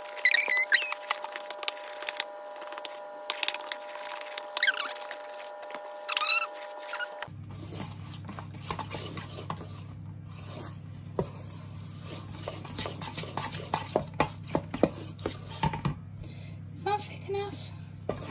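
A metal spoon stirring icing in a stainless steel bowl, clinking and scraping against the sides with short squeaks. A few steady tones under it give way abruptly to a steady low hum about seven seconds in.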